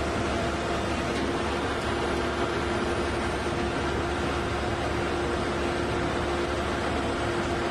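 Large crawler drilling rig running steadily: a constant mechanical drone with a steady hum.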